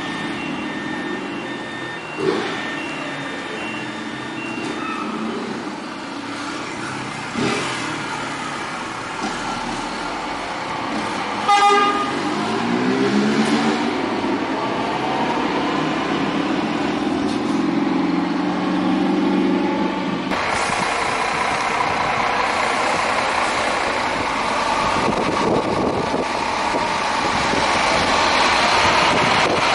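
Scania K360iB coach's rear-mounted five-cylinder diesel engine running as the bus moves off and passes, with a repeated beeping in the first few seconds. About twelve seconds in a short horn toot sounds, and the engine then revs up through the gears before settling to a steady run.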